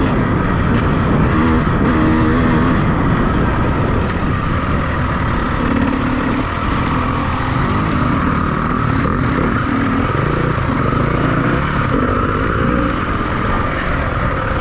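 Off-road vehicle engine running under way, its pitch rising and falling with the throttle, over a steady rushing noise.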